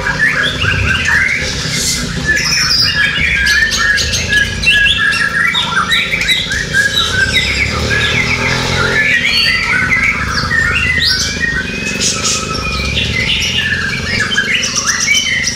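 Several caged white-rumped shamas (murai batu) singing at once: a dense, loud chorus of many overlapping fast, sweeping song phrases, over a low background rumble.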